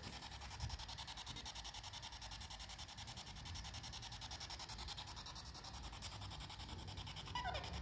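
Spirit box sweeping through radio stations: a steady static hiss chopped into rapid, even pulses, many per second.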